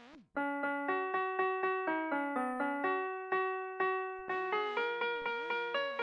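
Electronic toy melody from a VTech Winnie the Pooh ABC honey pot's sound chip, in an electric-piano voice. After a brief gap it plays quick, separate notes at about four or five a second. About four seconds in, a second, wavering part joins. The tune plays a little lower in pitch than it should.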